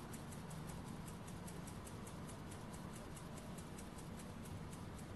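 Tiny brass single-acting model steam beam engine running on the heat of a small candle, giving a faint, even, fast ticking at about five strokes a second.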